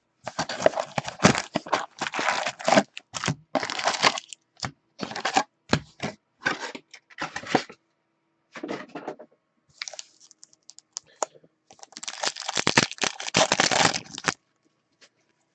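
A cardboard box of Upper Deck hockey cards is opened and its foil packs handled, making crinkling and tearing in short, irregular spurts. About twelve seconds in, a foil pack is torn open with a longer run of crinkling.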